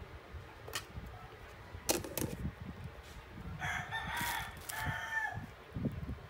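A rooster crowing once, starting about three and a half seconds in and lasting nearly two seconds, with a break near its end. Earlier, two sharp clicks.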